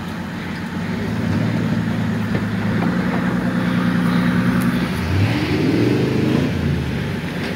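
Off-road competition vehicle's engine running hard under load, a steady note at first, then revving up and down about five seconds in.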